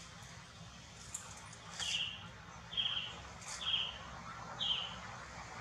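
Four short, high-pitched calls about a second apart, over a faint steady hiss, with a few sharp high ticks.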